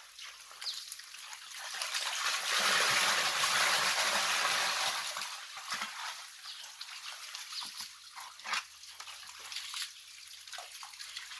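Muddy water sloshing and splashing as a plastic crate of stinging catfish is dunked and shaken in a concrete tank. It is loudest for about three seconds near the start, then settles to smaller splashes and drips.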